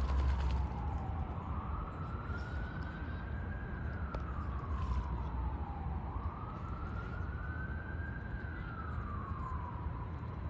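Emergency vehicle siren in a slow wail, its pitch rising and falling about every four and a half seconds, over a steady low rumble.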